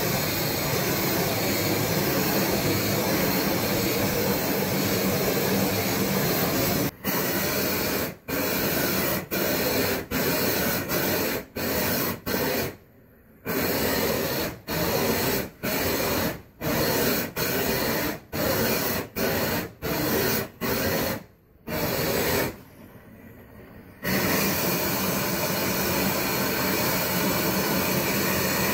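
Propane weed-burner torch burning with a loud, steady rushing hiss as it heats and shrinks boat shrink-wrap film. From about seven seconds in, the sound cuts off and starts again abruptly many times, then runs steadily again from about 24 seconds.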